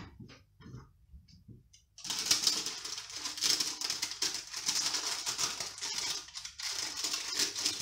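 Baking paper crinkling and rustling as it is handled on a baking tray: a rapid, continuous crackle that starts about two seconds in, after a few faint clicks.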